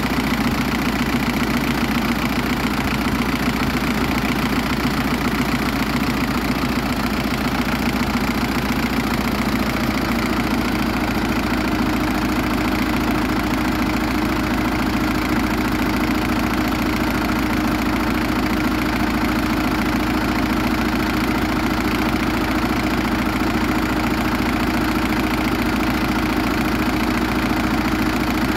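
Zetor 7340 Turbo tractor's turbocharged four-cylinder diesel engine running steadily, its tone shifting slightly about ten seconds in.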